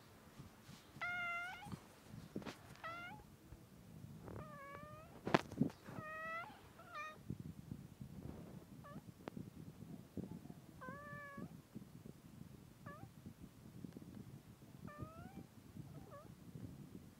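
Tabby cat meowing over and over, about a dozen calls, some drawn out and some short, with a sharp click about five seconds in and a low rumble underneath.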